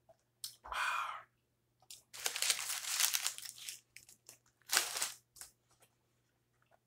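Paper burger wrapper crinkling and rustling as it is handled: a long bout, then a shorter one about five seconds in.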